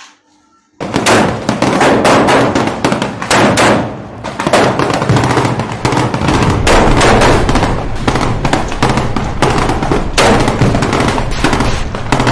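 Added gunfire sound effect: rapid, continuous shots like automatic fire, starting suddenly about a second in and going on without pause.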